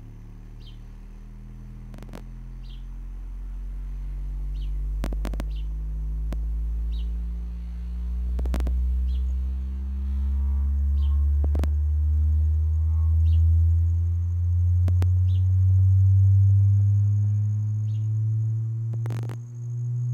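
Harbinger VS18 18-inch powered subwoofer playing a frequency sweep at max volume: a deep bass tone that climbs slowly and steadily in pitch and grows louder as it rises.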